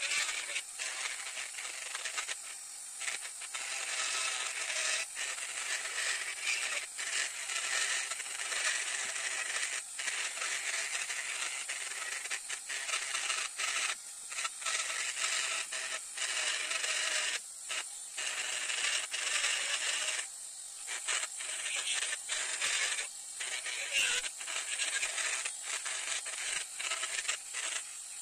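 Handheld rotary tool running with a small bit grinding into linden wood: a steady high-pitched motor whine under a gritty rasp, dipping briefly several times.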